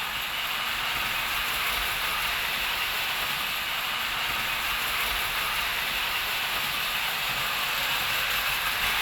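Prewar standard-gauge electric toy trains running on tinplate track: a steady whirring rumble of motors and wheels that slowly grows louder.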